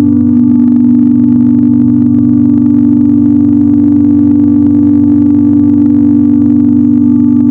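Nuclear warning-system alarm sound effect: a loud, steady, low tone of two close pitches sounding together, held without a break or any rise and fall.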